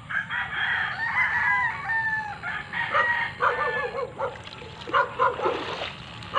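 A rooster crowing in one long, drawn-out call, followed by chickens clucking in quick repeated notes.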